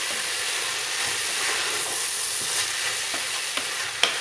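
Bacon, sliced calabresa and soaked lentils sizzling steadily in a hot pressure cooker as a wooden spoon stirs them, with a sharper knock about four seconds in.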